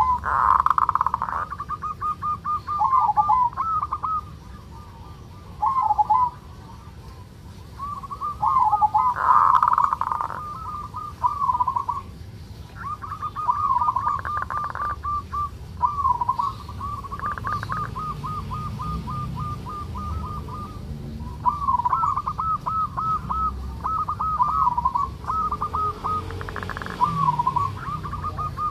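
Zebra dove (local perkutut) giving its 'ngerot' (kerot) call: phrases of rapid staccato coos and rattling trills at one pitch, separated by short pauses, with several louder rattling bursts. This is the call of a male in breeding drive.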